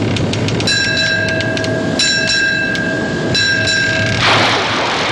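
Three held whistle blasts, each a steady pitched tone, over a rapid regular clicking; a broad rushing noise sets in near the end.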